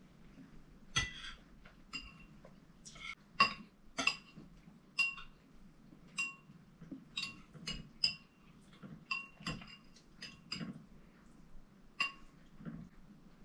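Metal spoons and forks clinking and tapping against ceramic plates and soup bowls while eating: about twenty irregular clinks, each with a brief ring.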